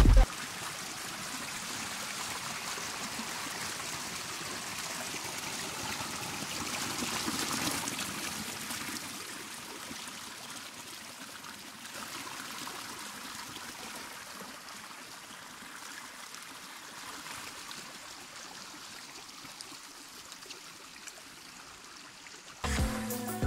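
Shallow stream flowing and trickling over rocks, a steady rush of water that swells slightly partway through. Electronic dance music cuts back in near the end.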